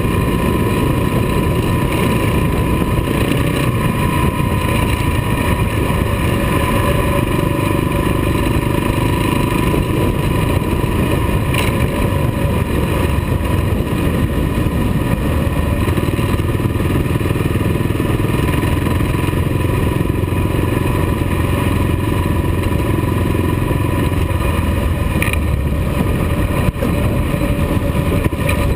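Kawasaki KLR dual-sport motorcycle's single-cylinder engine running steadily at cruising speed, with steady wind and road noise.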